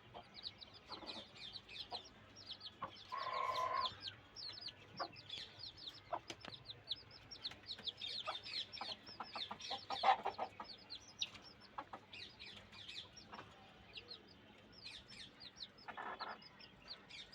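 A brood of chicks peeping constantly in short, high, falling cheeps. A mother hen clucks now and then among them, with a louder, longer held call about three seconds in.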